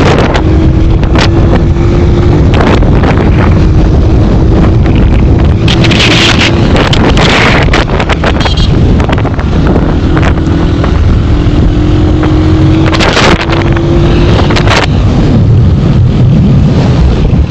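A motor running steadily under loud wind rumble on the microphone, its faint hum creeping slowly higher, with a few louder gusts of noise.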